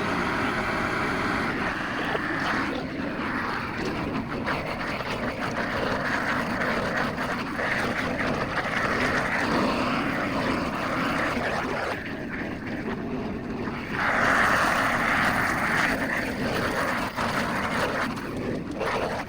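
A motor running steadily without a break, its sound growing and fading in stretches.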